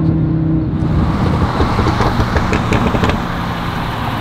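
V10 sports-car engine on the freeway: a steady cruising drone, then about a second in a rough, hard-pulling stretch of engine and exhaust noise lasting about two seconds, before settling back to a steady drone near the end.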